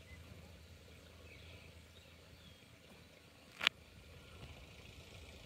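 Faint ambience with a low steady hum and a few faint bird chirps, broken by one sharp click about two-thirds of the way through.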